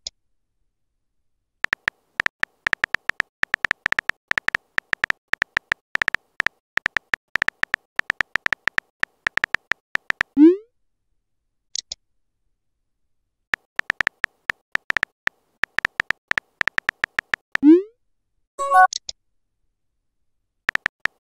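Phone on-screen keyboard tap clicks in quick, irregular runs as a text message is typed, then a short rising pop as it is sent. A second run of taps follows with another send pop, then a brief chime of an incoming message.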